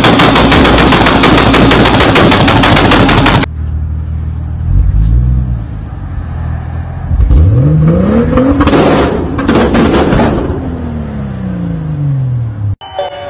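A rapid string of sharp bangs from a car's exhaust, about nine a second and like machine-gun fire, stopping after about three and a half seconds. Then a Toyota Supra Mk4's straight-six is revved: a short blip, then a long climb to high revs with crackling from the exhaust, falling away as the car pulls off.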